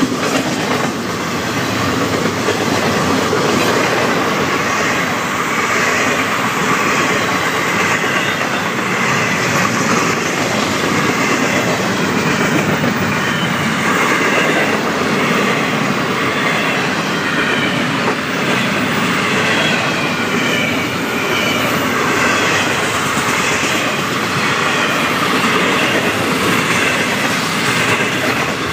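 Double-stack intermodal freight cars rolling past, a steady rumble and clatter of steel wheels over the rail joints that holds at the same level throughout.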